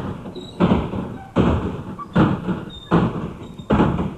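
A tram's reversible seat backs are flipped over one after another at the terminus to face the new direction of travel. Each one lands with a thump, about six in all, evenly spaced roughly three-quarters of a second apart.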